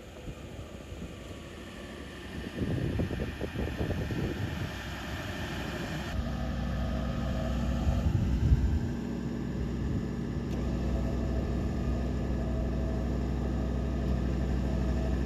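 Vehicle engine running: irregular low rumbling for the first few seconds, then a steady low drone from about six seconds in.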